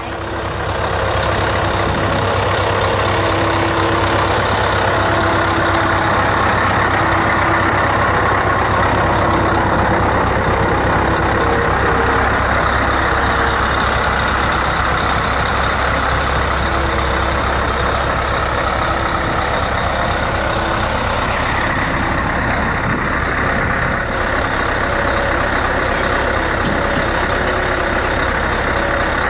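Scania 164 truck's V8 diesel engine idling steadily with a deep, even rumble.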